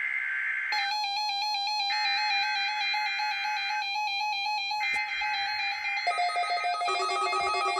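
NOAA Weather Radio SAME header: screechy digital data bursts repeating with short gaps, marking the start of a station's weekly test. Over them, an electronic beeping alert melody from a weather radio receiver starts about a second in and shifts to a lower pattern near the end.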